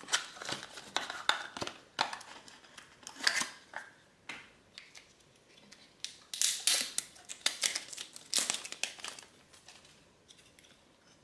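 Cardboard packaging being opened and handled: a small box's flaps and the wrapped charging cable inside rustle and crinkle in irregular bursts as the coiled cable is pulled out, busiest in the second half.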